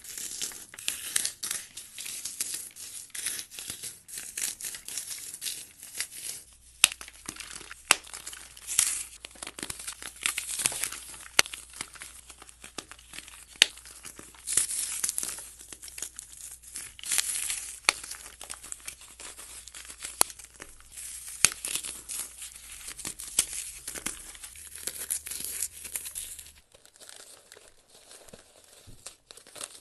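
Hands crushing and crumbling blocks of dry, paste-coated floral foam: dense crunching and crackling with many sharp snaps, growing quieter near the end.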